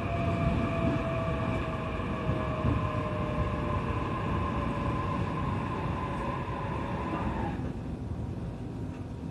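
E531 series electric train's traction motors whining under braking, the whine falling slowly in pitch as the train slows, then cutting off suddenly about seven and a half seconds in. Under it runs a steady rumble of the wheels on the track.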